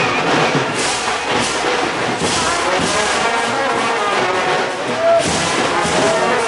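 Street brass band playing, horns over a steady percussion beat that lands about every three-quarters of a second.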